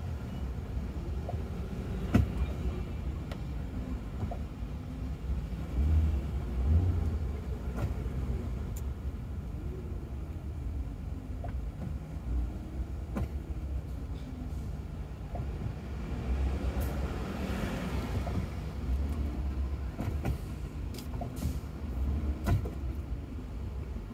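Low rumble of a Ford Crown Victoria driving in slow city traffic, heard inside the cabin: engine and road noise with pitches that rise and fall as it creeps forward. Scattered sharp clicks and knocks come about 2 s in, around 13 s and several times near the end.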